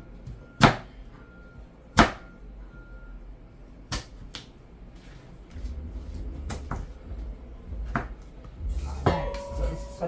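Kitchen handling knocks: two loud sharp knocks in the first two seconds, then a few quieter clacks. A low rumble sets in about halfway through.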